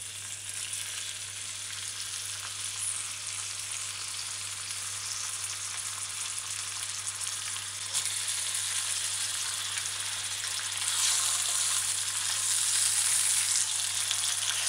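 Ham slices sizzling as they fry in hot cooking oil in a stainless steel pan, a steady hiss that grows louder near the end.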